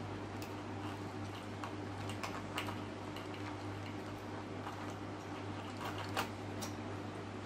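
Steady hum of an electric cooling fan, with scattered small clicks and ticks as small plastic parts and wires are handled; the sharpest click comes about six seconds in.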